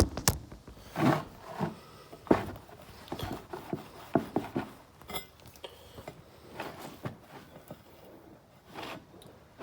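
Hand buffing of a metal part with a cloth: a series of irregular rubbing strokes and knocks, louder in the first few seconds and fainter later.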